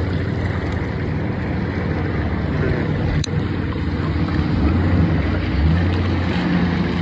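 Jet ski engine idling with a steady low hum that swells a little in the second half, and one sharp click about three seconds in.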